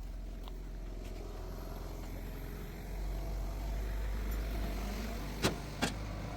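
An engine running steadily with a low rumble that grows louder about halfway through. Two sharp knocks come close together near the end.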